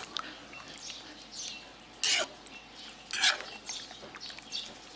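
Metal spoon stirring thick pork-blood stew in a wok: wet swishing and scraping, with two louder strokes about two and three seconds in.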